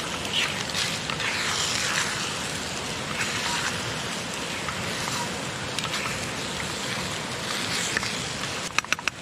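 Steady rushing, pattering water noise, with a quick run of four or five sharp clicks near the end.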